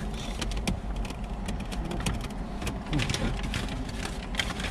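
Plastic takeout soup container and its clear lid being handled and worked at by hand: a run of small plastic clicks and crinkles over a low steady hum.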